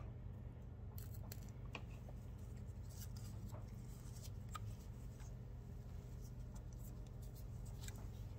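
Soldering a stained glass seam with a soldering iron and wire solder: faint scattered clicks and crackles over a steady low hum.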